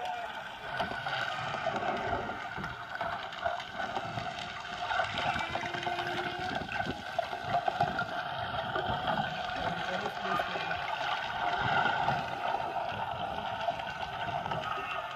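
Whale calls picked up underwater: faint, brief moaning tones over a steady hum and hiss, partly masked by the engine noise of a passing boat.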